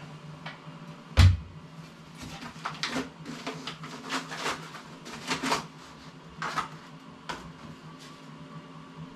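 Pressed and welded workbench leg frames and their packaging being handled: one heavy thump about a second in, then a string of lighter knocks, clicks and rustles.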